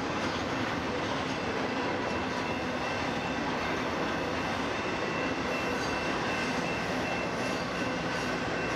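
Freight train cars rolling past: a steady rumble of wheels on rail, with a faint high, steady wheel squeal over it.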